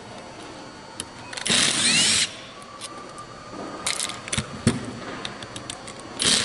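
Hand-tool work on the metal air-spring cylinder of a cordless framing nailer: a hex key loosening the cap bolts, with light metal clicks and clinks and two short scraping rasps, about a second and a half in and again about four seconds in.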